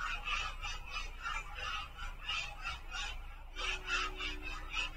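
Marker squeaking on a whiteboard in quick short strokes, about three a second, as a heading is written out.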